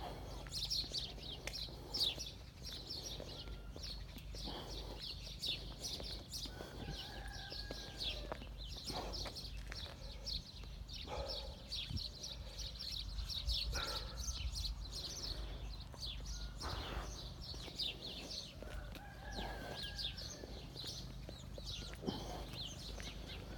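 Small birds chirping continuously in many short, high notes, with a few longer, lower calls now and then.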